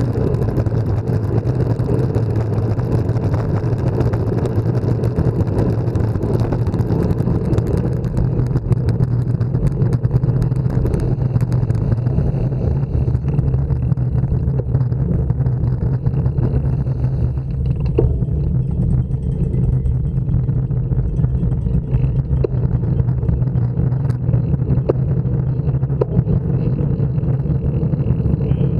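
Steady wind rumble on a bike-mounted action camera's microphone while cycling along a road, with a few faint clicks in the second half.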